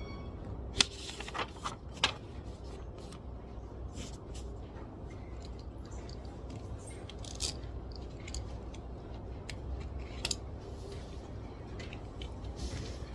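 Study-desk ambience: a steady low room hum with scattered small clicks and taps of stationery being handled. The sharpest clicks come about a second in, again at two seconds, and about ten seconds in.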